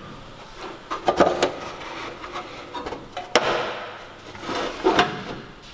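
Workshop handling noises: a series of short knocks and clicks as metal parts are moved and set down. The sharpest click comes about three and a half seconds in.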